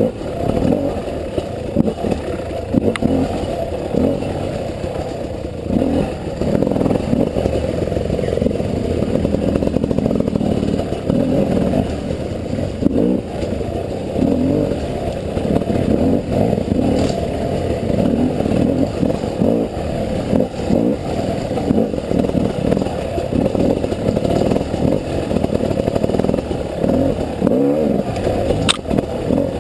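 A 300cc two-stroke enduro motorcycle being ridden on a trail, the engine rising and falling with the throttle, muffled.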